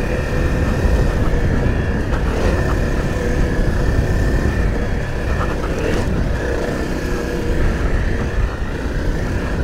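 Honda CRF dual-sport motorcycle running at a steady pace, its engine note holding even under a heavy rumble of wind and road noise on the microphone.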